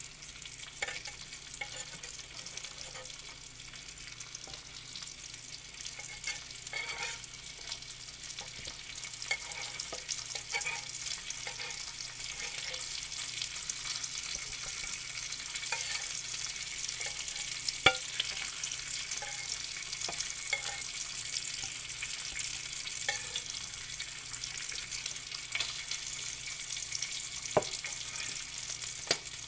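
Bacon sizzling and crackling in hot fat in an electric fry pan: a steady, dense spitting hiss that grows a little louder partway through, with a few sharp clicks.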